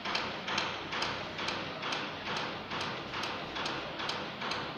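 Even, rhythmic soft taps, about two a second, that stop near the end.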